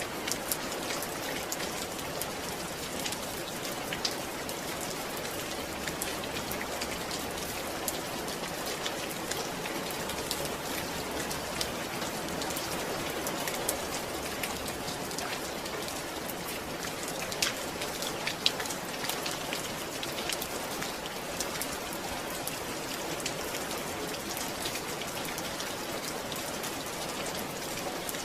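Steady rain falling, with the patter of individual drops striking a surface and a few louder drops standing out.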